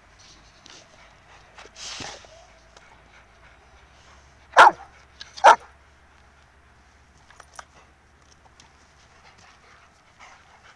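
A dog barks twice, short and sharp, a little under a second apart, about halfway through. A short rustle comes about two seconds in, with faint scattered ticks otherwise.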